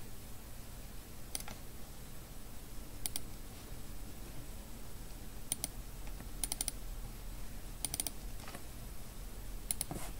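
A computer mouse clicking about a dozen times, scattered and some in quick pairs and short runs, over a faint steady low hum.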